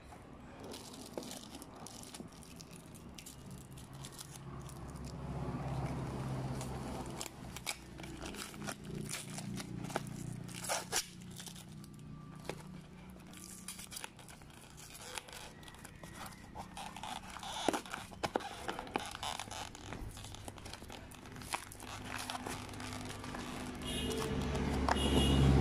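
Corrugated cardboard and packing tape being torn open by hand: irregular tearing and crinkling with many sharp crackles and clicks. A low rumble swells near the end.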